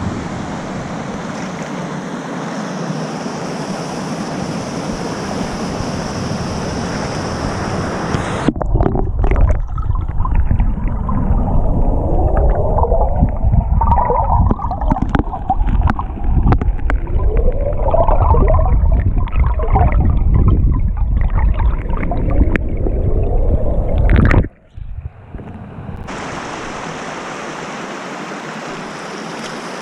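Mountain stream rushing, as a steady hiss. About eight seconds in the sound turns muffled and heavy in the lows, with rising bubbling gurgles, as heard with the microphone underwater in a stream pool; near the end the open-air rush of the stream returns.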